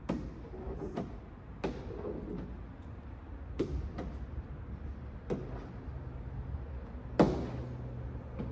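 Sharp, irregular taps and knocks from a hard card tool and hands working against the rear hatch glass and its trim while window tint is pressed in, about seven in all, the loudest about seven seconds in. A low steady hum runs underneath.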